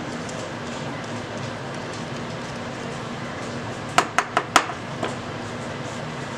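Small metal hand tool set down on a tabletop among other tools: four sharp clicks in quick succession about four seconds in, then one fainter click, over a steady low hum.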